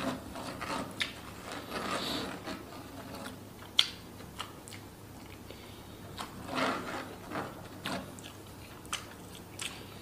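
Close-up eating sounds: chewing and wet mouth smacks as leftover rice is picked up with the fingers and eaten off them, with scattered sharp clicks, the loudest about four seconds in.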